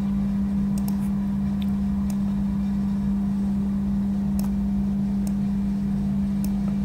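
Steady low hum with a deeper rumble beneath it, unchanging throughout, with a few faint, short clicks scattered through.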